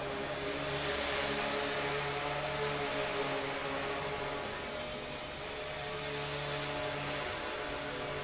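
Small electric radio-controlled model plane, its motor and propeller buzzing steadily in flight, the pitch shifting up and down a little with the throttle.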